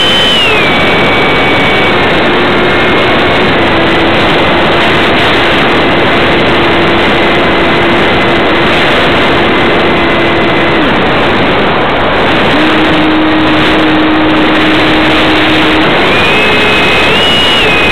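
Electric motor and pusher propeller of a Multiplex EasyStar RC plane in flight, heard from the onboard camera under a loud rushing of air. The motor whine steps down in pitch about half a second in, drops away around eleven seconds in, comes back a second or so later, and climbs in steps near the end as the throttle changes.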